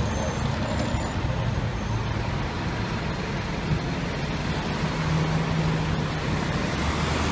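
City street traffic: cars and a fire engine driving through an intersection, a steady low engine rumble with road noise.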